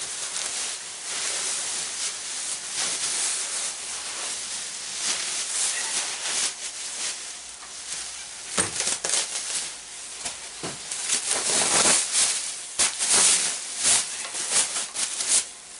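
Plastic bubble wrap being pulled and unwound by hand, rustling and crinkling, with sharper, louder crackling in the second half.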